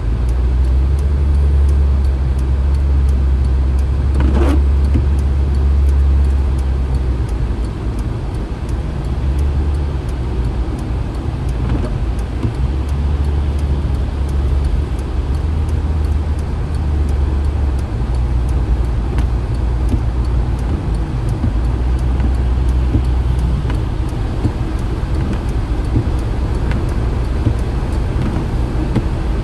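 Steady low rumble inside a car driving on a rain-soaked highway: engine and road noise, with the light hiss of tyres on wet pavement.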